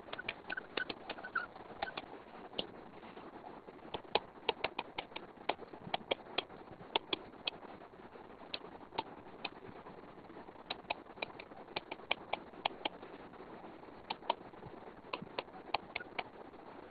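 Stylus tip tapping and clicking on a tablet's glass screen during handwriting: irregular light ticks, often in quick clusters, over a steady background hiss.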